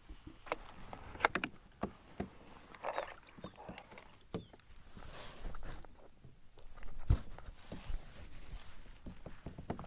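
Irregular knocks, clicks and rattles of a fish and fishing gear being handled in a kayak, with one heavier low knock about seven seconds in.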